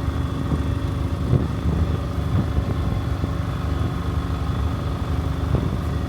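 A yacht's engines droning steadily, a constant low rumble with a faint hum held on a few steady pitches.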